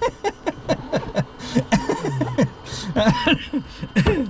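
People laughing: quick runs of short chuckles.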